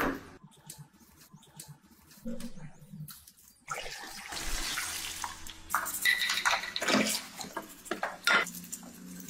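Water pouring over a motorcycle engine's crankcase halves as they are washed in a basin, with clicks and knocks of the metal castings being handled. The pouring starts a little over a third of the way in, after a few seconds of quieter handling clicks.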